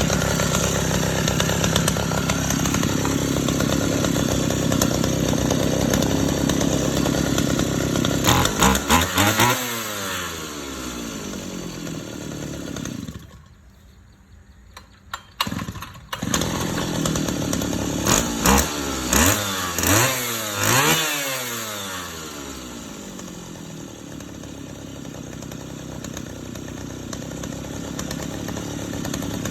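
Small two-stroke brush cutter engine running on test: it idles, is revved in a quick series of blips, stops, is restarted after a couple of short bursts, is blipped again several times and settles back to idle.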